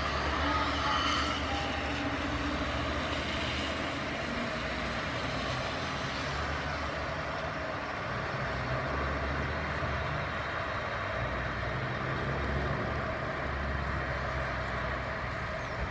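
Embraer 195-E2's Pratt & Whitney PW1900G geared turbofan engines at low taxi power as the airliner rolls slowly past: a steady jet rush over a low rumble.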